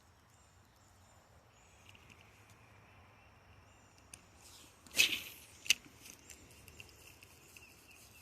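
Quiet outdoor background with faint high chirps. About five seconds in comes a sudden loud whoosh, a sharp click under a second later, then light scattered ticking.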